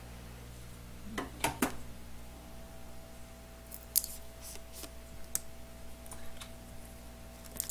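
Light clicks and clatter of tools and parts being handled on an electronics repair bench, over a steady low hum of bench equipment. A faint steady high tone starts about two seconds in.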